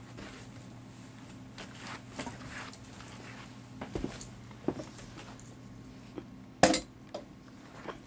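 Handling noise from a camera being picked up and repositioned: scattered light knocks and clicks, the sharpest one about two-thirds of the way through, over a faint steady hum.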